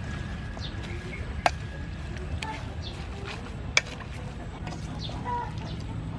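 Salad being tossed in a stainless steel bowl, with two sharp knocks of the utensil against the bowl, about a second and a half in and near four seconds in. Chickens cluck faintly in the background.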